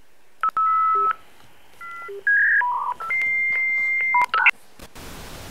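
A run of electronic telephone-style beeps at changing pitches, with one longer high tone held for over a second about three seconds in. Near the end the beeps stop and a steady hiss like TV static begins.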